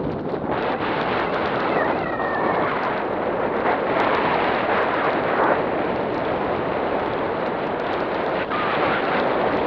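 Wind rushing over the camera microphone in flight, a loud, steady buffeting rush of airflow.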